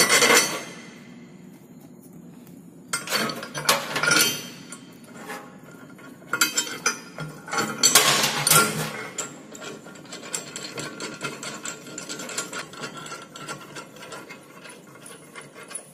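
Nuts being threaded and turned onto bolts through the lugs of steel pipe clamps, metal clicking and scraping in several bursts of a second or two, then lighter ticking.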